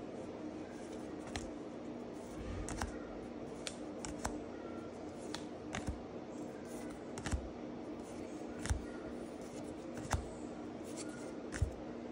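Pokémon trading cards being flipped through by hand one at a time, each card slid off the stack with a short, sharp flick, the later ones coming about every second and a half. A steady low hum runs underneath.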